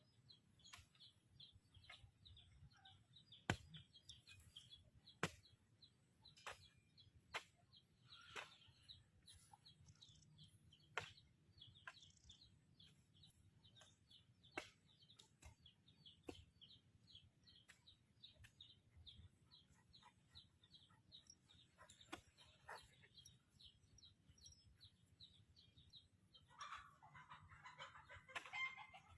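Faint bird calls: a steady run of quick, high chirps, with scattered sharp clicks and a louder, rougher call near the end.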